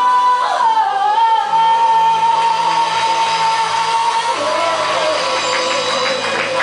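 Worship singing over guitar accompaniment, with a voice holding one long high note through the middle before a lower melody line comes in near the end.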